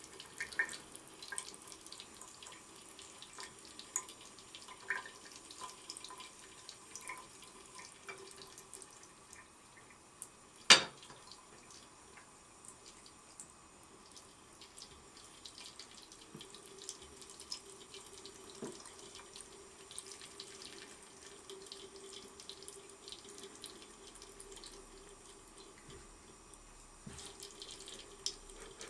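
Thin stream of tap water running steadily into a sink, with many small scattered ticks and one sharp knock about eleven seconds in.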